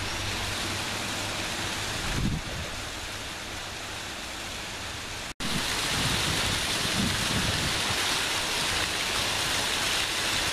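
Steady rush of falling water in the rocky fall channel below the aqueduct. It cuts out briefly about five seconds in and comes back louder.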